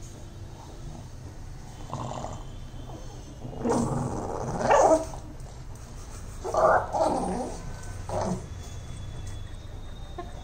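Pug vocalizing in a few short bursts, the loudest two about four and seven seconds in, with smaller sounds before and after.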